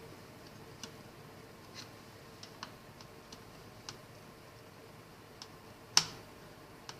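Scattered light clicks and taps, with one sharper click about six seconds in: a small screwdriver loosening screws on the plastic joystick housing of a remote-control transmitter.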